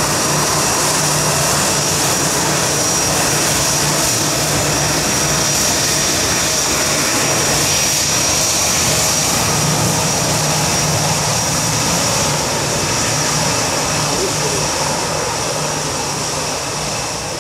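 Airbus A320 jet engines at taxi power: a steady whine with a high, even tone over a low hum, easing off slightly near the end as the airliner taxis away.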